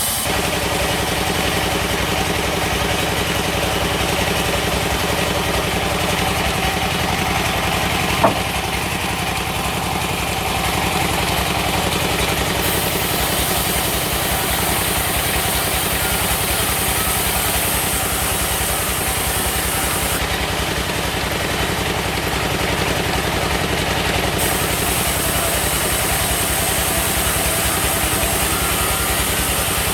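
Sawmill machine running steadily, with a single sharp knock about eight seconds in.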